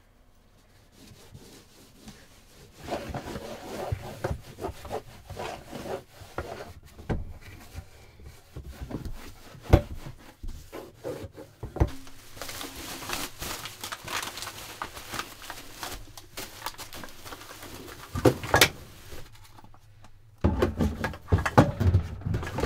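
Paper towel rubbing and scrubbing across a camper floor, with paper and plastic rustling, a few sharp knocks, and low thuds near the end, as of cabinet doors under the sink.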